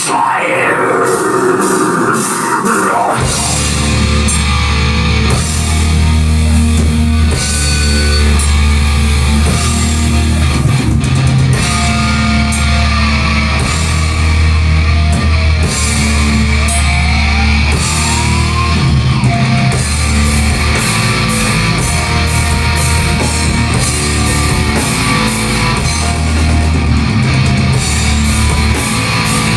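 Live thrash/death metal band playing: distorted electric guitars, bass and drum kit, loud and dense. It opens with a falling, gliding pitch, and the full band with heavy bass and drums comes in about three seconds in.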